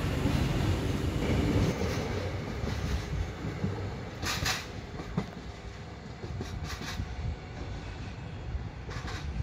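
Diesel passenger train pulling away, its low engine and wheel rumble fading over the first few seconds. A few sharp clicks follow, typical of wheels over rail joints.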